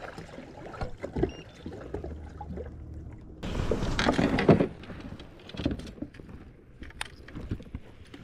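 Water sloshing and splashing against a moving kayak's hull, with scattered knocks of rods and gear on the deck. The splashing grows louder for about a second near the middle.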